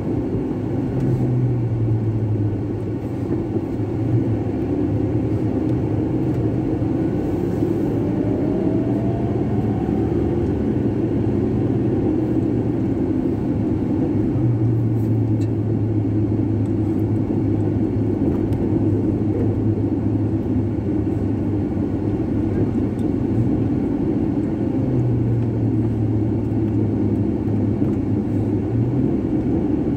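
A moving car's engine and tyres heard from inside the cabin: a steady rumble of road noise, with the engine's low hum swelling for a few seconds at a time as the car pulls away and drives on.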